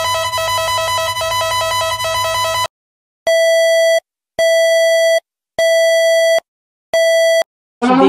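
Emergency alert system tones. First a loud, buzzy steady alarm tone, which cuts off about two and a half seconds in. Then four long electronic beeps about a second apart, and right at the end a siren begins to rise.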